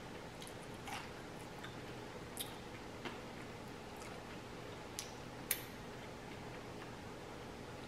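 Person eating close to the microphone: quiet chewing with about five sharp mouth clicks and smacks, over a faint steady hum.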